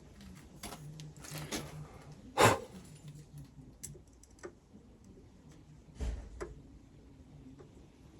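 Scattered clicks and knocks of tools being handled at a lathe, with one sharp knock about two and a half seconds in and another about six seconds in.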